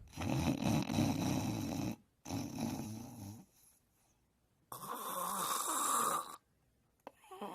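Snoring: a long, rough, rattling snore, a shorter one right after, then after a pause a breathy hiss of about a second and a half.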